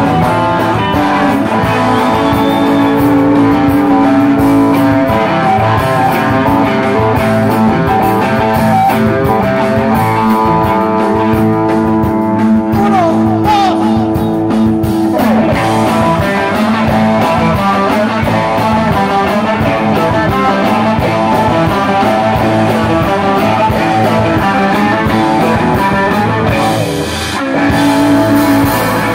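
Live rock band playing through a PA: electric guitars, bass guitar and drums. About halfway through, long held notes give way to a note that slides down in pitch, and the sound dips briefly shortly before the end.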